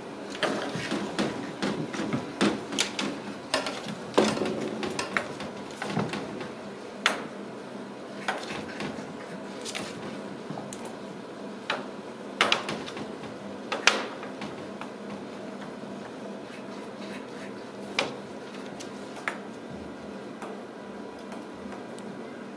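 Ragdoll kittens playing on a hardwood floor: irregular taps, clicks and knocks of paws and claws and a ball toy against the floor and door, busy for the first several seconds, then only occasional single knocks.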